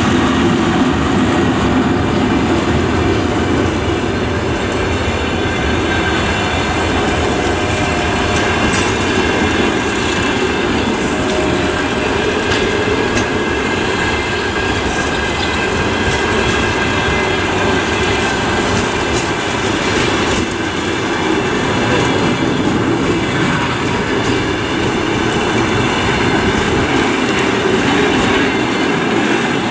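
Passenger coaches of a locomotive-hauled train rolling past close by, with a steady rumble and clatter of the wheels on the rails.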